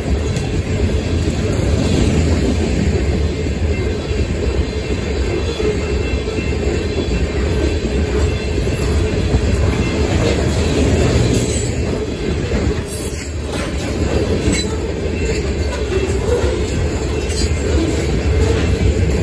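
Loaded covered hopper cars of a sand train rolling past on steel rails: a steady, heavy rumble of wheels and trucks, with a few sharp clicks.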